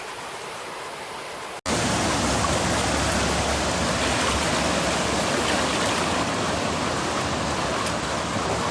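Steady rushing of fast-flowing floodwater. It is quieter at first, then about a second and a half in it cuts abruptly to a louder, steadier rush.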